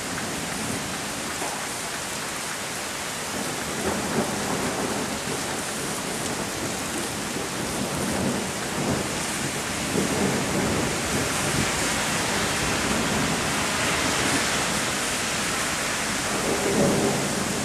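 Heavy rain falling in a steady hiss during a thunderstorm, with low thunder rumbling that comes and goes and is strongest near the end.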